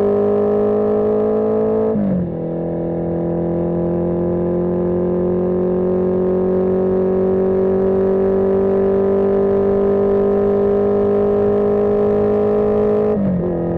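1981 Yamaha XJ650 Maxim's inline-four engine pulling under load, its pitch climbing slowly and steadily. It drops suddenly about two seconds in and again near the end as the rider shifts up a gear.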